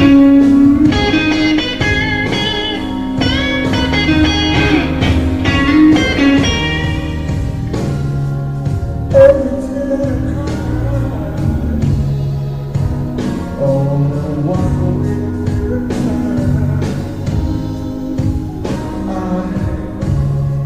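Electric blues guitar playing with bent notes, over bass guitar and drums.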